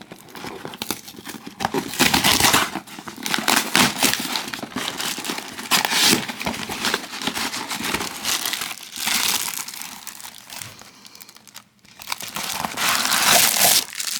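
A cardboard parcel box and its packing being opened by hand: crinkling, rustling and tearing in uneven bursts, loudest about two seconds in and again near the end after a brief lull.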